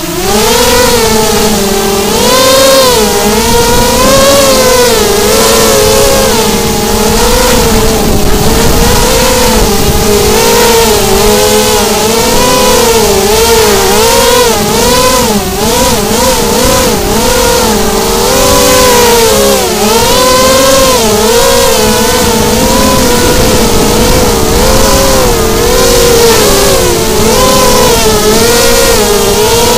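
FPV racing miniquad's brushless motors and propellers whining, the pitch constantly rising and falling as the throttle is worked during freestyle flying.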